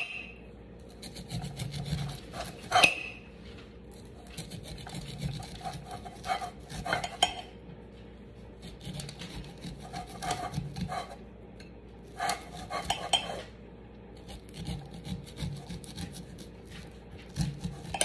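Kitchen knife cutting the kernels off a roasted corn cob onto a ceramic plate: irregular scraping strokes down the cob, with sharp knocks and clinks of the blade against the plate, the loudest about three seconds in.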